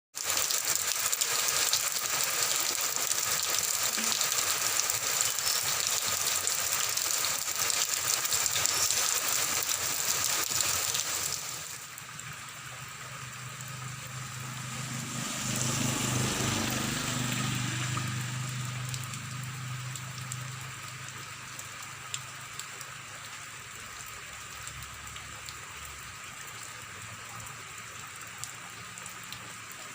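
Heavy rain falling, a dense steady hiss that drops abruptly to a lighter, quieter patter about twelve seconds in. A little later a low hum swells and fades over several seconds, like a vehicle passing in the rain.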